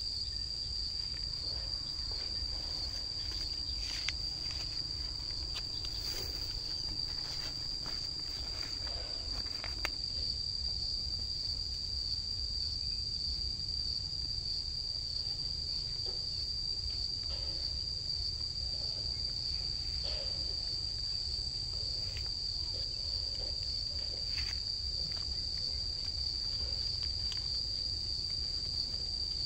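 Steady, shrill chorus of insects such as crickets or cicadas, one unbroken high tone, over a low outdoor rumble, with a few faint rustles now and then.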